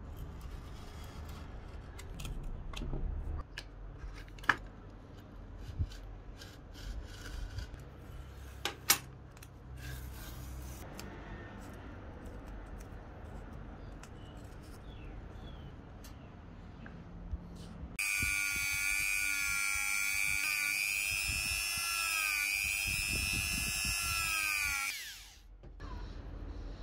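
Quiet handling with light clicks and scrapes of a knife and paper. About eighteen seconds in, a small high-speed electric power tool starts up loud and runs for about seven seconds, its whine dipping in pitch and recovering as it takes load, then winds down and stops.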